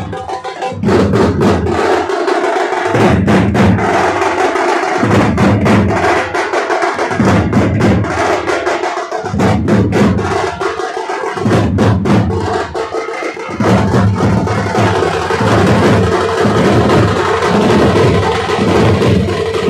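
Teenmar drum band playing: large double-headed drums and flat frame drums beaten with sticks in a loud, driving rhythm, with sharp stick strikes on top. The beat comes in phrases broken by short pauses about every two seconds, then runs on unbroken for the last third.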